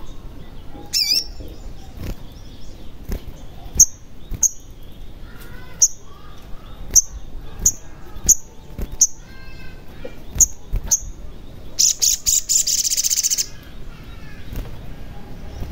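Olive-backed sunbird (sogon) calling: repeated sharp, high chips, a quick trill about a second in, a short falling run of notes, and a harsh buzzing trill lasting about a second and a half near the end. Low knocks are scattered through it, from the bird hopping about its cage.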